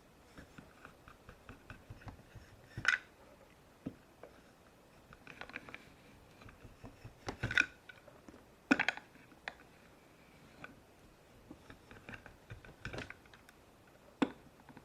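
Plastic Play-Doh cutter and tools clicking and tapping on a tabletop as dough is cut and handled, with a handful of sharper knocks spread through.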